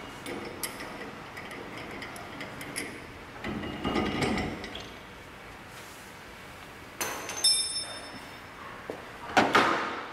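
Metal wheel-balancer adapter parts and tools being handled: light clinks and ticks, a scraping stretch, a metal clank that rings briefly about seven seconds in, and a louder clatter near the end.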